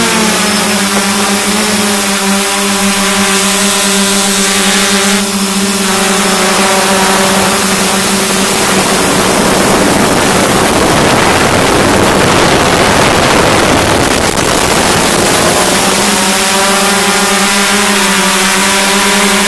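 Hexcopter's electric motors and propellers humming steadily, heard from the camera on board. From about seven seconds in, a rushing noise covers the hum, which comes back near the end.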